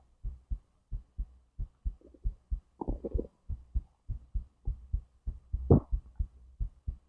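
Human heartbeat heard close against the body, low thumps in lub-dub pairs at about one and a half beats a second, with short stomach or intestinal gurgles of digestion about three seconds in and a brief louder gurgle near six seconds.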